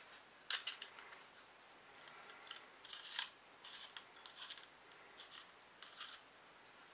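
Small metal clicks and scrapes as the steel parts of a rebuildable dripper atomiser are handled and its deck is fitted and twisted onto a box mod. A sharp click about half a second in is the loudest, followed by a run of lighter clicks and short scrapes.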